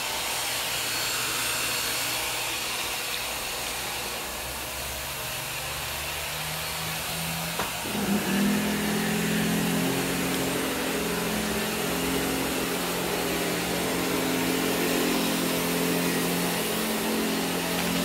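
Professional upright vacuum cleaner running steadily on carpet. About eight seconds in, a low steady hum joins the rushing of its motor and airflow.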